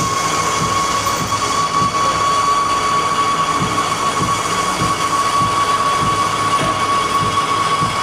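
A machine running with a steady high whine and irregular low thumps underneath, typical of a small electric motor.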